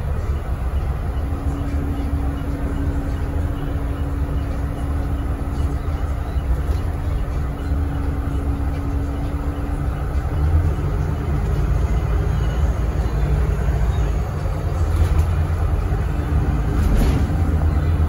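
City bus cabin noise: the engine and drivetrain run with a low rumble as the bus pulls away and drives on, with a steady whine that changes pitch about ten seconds in and again near the end. A few light rattles and clicks come late on.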